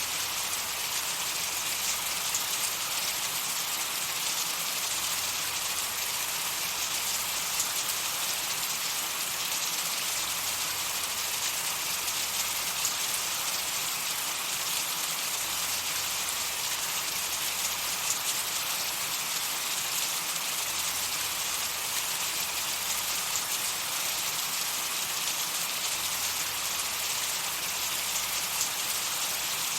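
Steady, unbroken hiss, strongest high up and thin in the bass, with a fine crackle like rain, used as tinnitus-masking noise.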